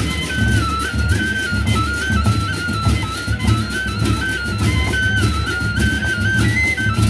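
Sasak gendang beleq music: large double-headed barrel drums beating a dense low rhythm under a high seruling (bamboo flute) melody that steps up and down in short phrases, with frequent sharp metallic strikes.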